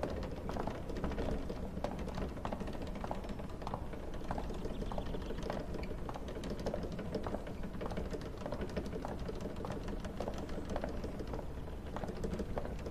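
Light, irregular clicks and taps, several a second, over a steady low rumble: a man walking on a hard floor with a rolling suitcase.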